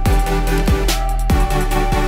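Electronic background music with a steady beat and deep bass hits that drop in pitch, about one every half second.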